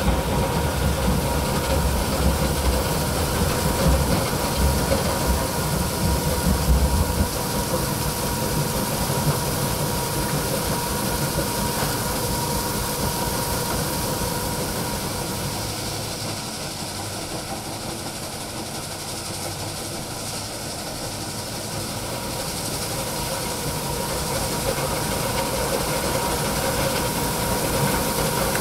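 Stone crushing and screening plant running: a steady mechanical rumble of crushers and conveyors with a constant thin whine over it. A heavier low rumble in the first seven seconds changes abruptly, and the noise eases a little midway before building again.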